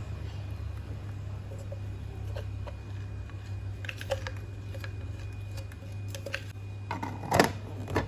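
Light clicks and taps of small objects being handled, over a steady low hum, with a few louder knocks near the end.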